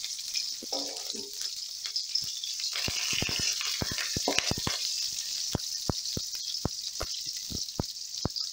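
Green chillies and fenugreek seeds sizzling and spluttering in hot oil in an aluminium kadai: a steady hiss with frequent sharp, irregular pops. A metal spoon stirs them partway through.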